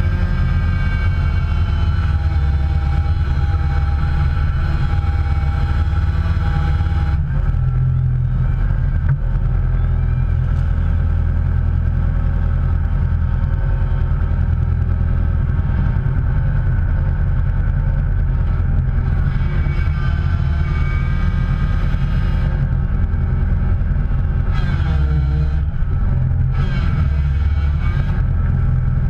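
A motor vehicle running steadily, a loud low rumble with a hum over it; the sound changes about seven seconds in, and the pitch dips briefly near the end.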